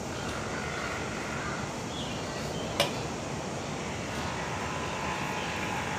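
Steady background noise of a moderate outdoor setting, with one short sharp click a little under three seconds in.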